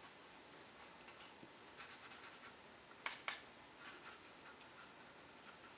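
Faint scratching of a fine paintbrush dabbing acrylic paint onto a cardboard toilet paper roll, a few short irregular strokes, with a sharper light tick about three seconds in.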